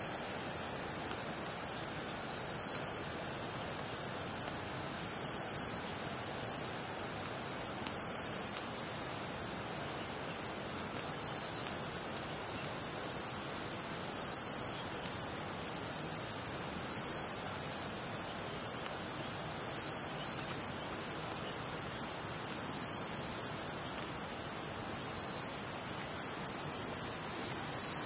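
A steady, high-pitched insect chorus that dips briefly about every three seconds.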